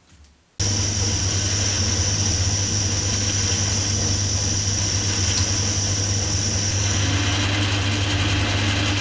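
Small Dunford Viceroy metal lathe running: a steady motor hum with a high whine, starting suddenly about half a second in. The whine drops away about seven seconds in and a lower tone takes over.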